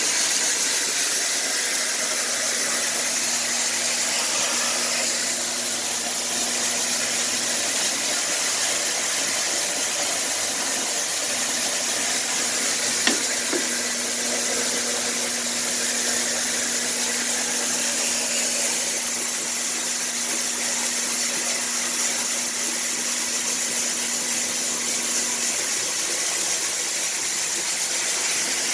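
Chive-peeling machine running, its air blowing in a steady loud hiss over a steady motor hum; the hum cuts out near the end while the hiss goes on. A single sharp click about halfway through.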